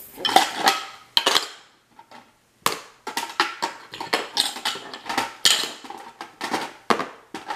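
Small plastic toy pieces clattering and clicking as they are taken out of their box by hand and set down on a tabletop, in quick irregular knocks with a short pause about two seconds in.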